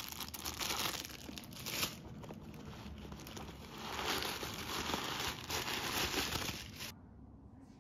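Clear plastic wrapping and the white stuffing inside a new bucket bag crinkling and rustling as hands pull them out. The crinkling comes in surges and cuts off abruptly near the end.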